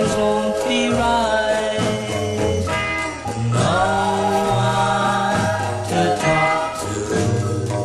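Music from a late-1950s single: long held notes over a steady bass line.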